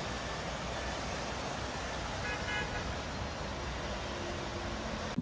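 City street traffic noise, a steady hiss, with a short car horn toot about two seconds in.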